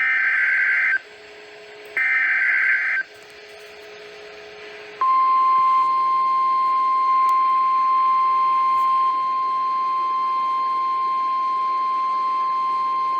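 NOAA Weather Radio SAME header: two harsh digital data bursts about a second long, a second apart. Then, about five seconds in, the steady single-pitch 1050 Hz Weather Radio alert tone sounds, the long beep that announces a new tornado warning.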